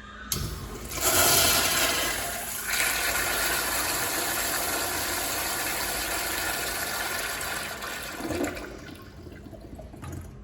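A toilet flushing: a sharp start, a surge of water that is loudest about a second in, then a steady rush of water that dies away near the end.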